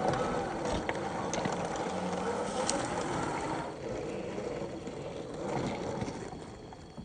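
A scale RC truck's electric motor and gear drive running, with a few small clicks, fading away near the end.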